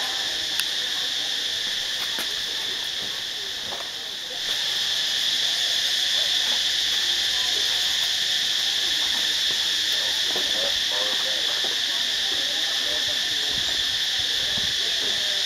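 Steady, high-pitched droning chorus of insects, getting louder about four and a half seconds in.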